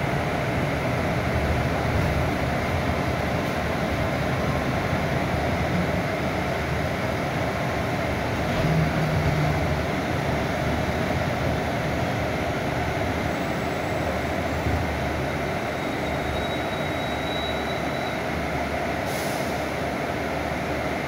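Cabin noise inside a moving Mercedes-Benz O500U city bus: its rear-mounted diesel engine running steadily under road noise, with a short high hiss near the end.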